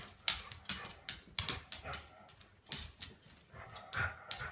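An irregular run of sharp clicks and taps, several a second, from a big dog's claws and paws hitting a wooden floor as it plays roughly with a kitten.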